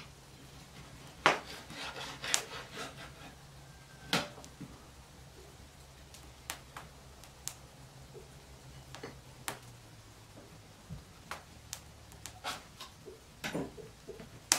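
Scattered light knocks, taps and rubbing as a cake, a knife and small tin containers are handled on a wooden table. The sharpest knocks come in the first few seconds.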